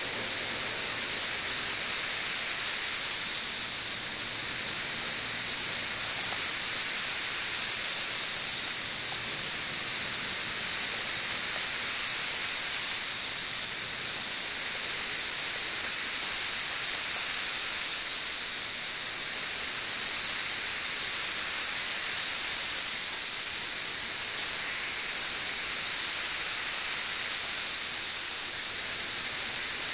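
A dense chorus of 17-year periodical cicadas (Brood XIV) singing: a steady, high, hiss-like drone that gently swells and fades every few seconds.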